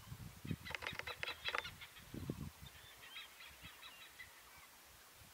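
Birds calling: a quick burst of rapid, sharp calls about a second in, then scattered faint chirps, with a few low thuds early on.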